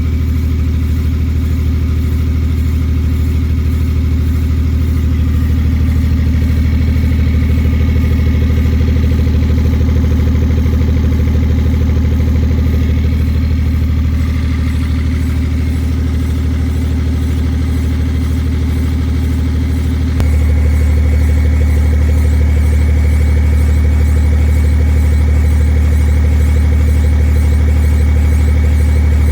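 A BMW car running with a steady low engine and drivetrain drone. The sound steps up slightly in level about twenty seconds in.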